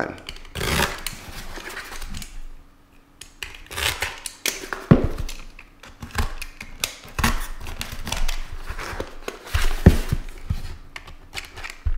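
Cardboard shipping box sealed with filament tape being handled and opened: a string of scrapes, rustles and sharp clicks of cardboard and tape.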